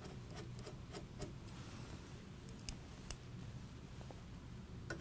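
A hand screwdriver turning thread-cutting fasteners into a sheet-metal heat shield on a fan motor's aluminium housing: faint scattered clicks and ticks of the screwdriver tip and metal parts, with a brief faint high squeak about one and a half seconds in.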